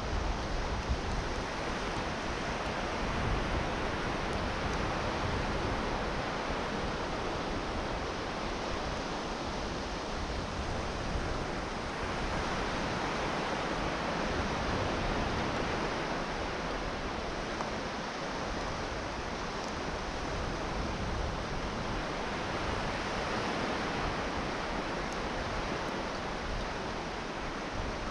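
Sea surf washing onto a sandy beach: a continuous hiss of breaking waves that swells and eases every several seconds, with gusty wind rumble on the microphone.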